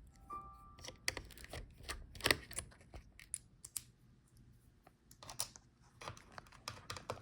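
Scattered small clicks and taps of a screwdriver working the four screws that hold a laptop's heatsink, with the screws being handled as they come out.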